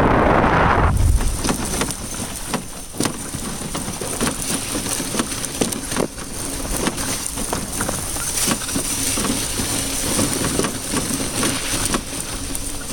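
Dog sled runners hissing and crunching over thin frozen snow as a four-dog team pulls it, with many small clicks and rattles. Wind buffets the microphone for about the first second.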